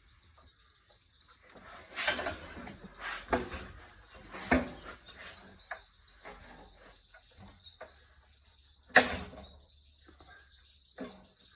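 Metal clanks and knocks of tools and bolts being handled while an engine's mounting bolts are fitted on a rototiller: a few sharp separate strikes, the loudest about nine seconds in.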